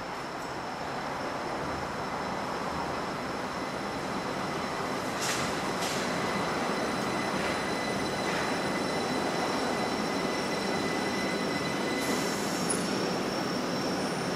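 Linimo maglev train running into the station and slowing to a stop: a rushing running noise that grows gradually louder, with steady high-pitched whines on top.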